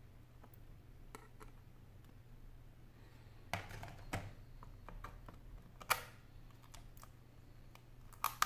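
Small sharp clicks and taps of steel tweezers working against the opened Samsung SM-P905 tablet's metal frame and internal parts, irregularly spaced, with louder clicks about three and a half, four, six and eight seconds in.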